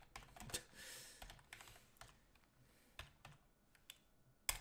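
Faint typing on a computer keyboard: a scattering of separate key clicks, with one louder keystroke near the end.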